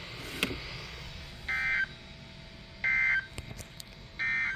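Emergency Alert System end-of-message code: three short bursts of SAME digital data tones, each about a third of a second long and about 1.4 s apart. They signal the end of the alert broadcast.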